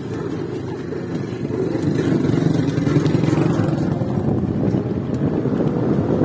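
Homemade electric buggy rolling over interlocking paving stones: a steady, dense rumble from its small tyres and bare steel frame.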